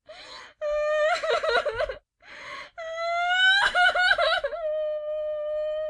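A woman crying: a sharp indrawn breath, then a wavering sobbing wail, then another gasp and a long wail that breaks into sobs and ends on a held note.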